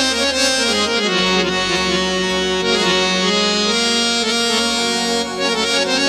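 Roland XPS-30 keyboard playing its harmonium tone: a melody of held notes over sustained chords.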